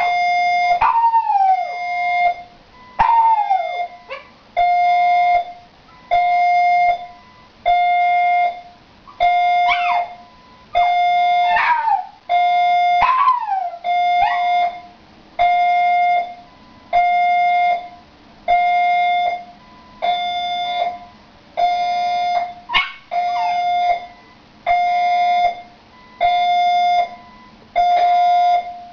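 Fire alarm beeping over and over, a long steady tone about every second and a half. A Shiba Inu puppy howls along with it, several howls sliding down in pitch in the first half and one more later on.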